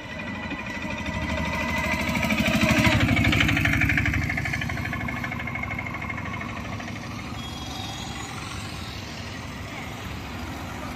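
A motor scooter's small engine passing close by. It builds to a peak about three seconds in and then fades into steady street traffic.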